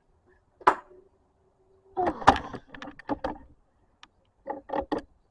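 Handling of a magnetic mesh screen on a door: a sharp clack about a second in, then two runs of quick knocks and rustles.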